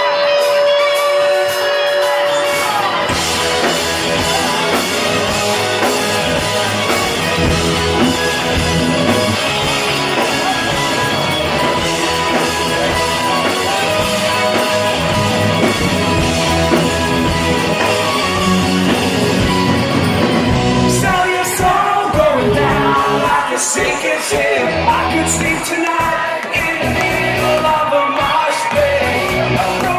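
Rock band playing live with singing and shouts from the crowd; a single held note opens, then the full band comes in about three seconds in.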